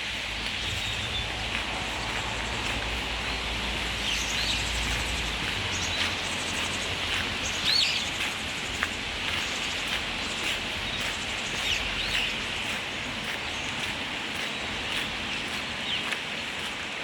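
Birds calling with short chirps every second or two over a steady rushing background. A low rumble sits under the first few seconds.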